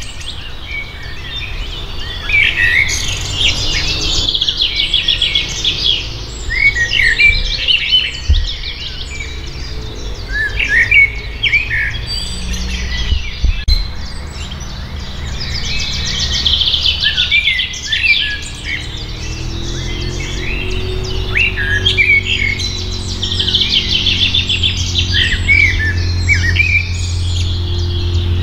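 Songbirds singing: a chorus of chirps and repeated trilling song phrases. A low steady hum lies underneath from about twelve seconds in.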